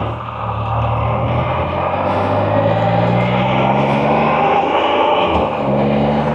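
Can-Am Spyder three-wheeler's engine pulling hard under acceleration, its note rising steadily. About five seconds in there is a brief break and drop in pitch as it shifts up a gear, then it climbs again.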